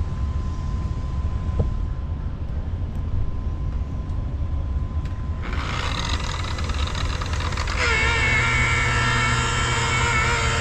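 Makita rotary polisher: a low rumble at first, then the polisher's motor whine comes in about halfway through. A couple of seconds later its pitch dips and settles into a steady, fuller hum as it runs against the painted deckhead.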